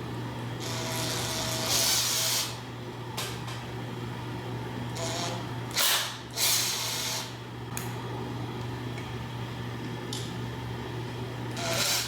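Cordless impact driver run in two bursts of about two seconds each, backing out the bolts on the ceiling fan motor that hold the blade arms.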